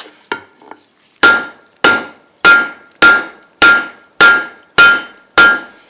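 Blacksmith's hand hammer striking hot 3/8-inch square steel stock on an anvil, a light tap and then eight blows in an even rhythm, about one every 0.6 s. Each blow rings. The piece is turned 90 degrees between blows as the end is drawn out and isolated.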